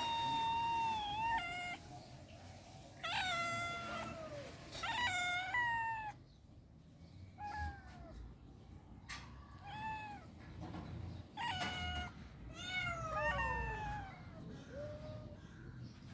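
Cat meowing over and over, a string of about nine separate meows of varying pitch, several of them sliding downward.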